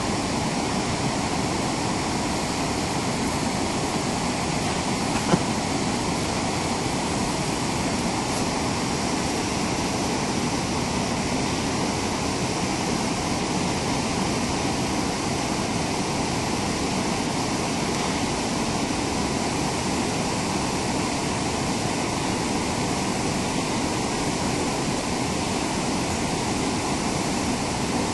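Whitewater river rapids rushing steadily over rocks, with one brief click about five seconds in.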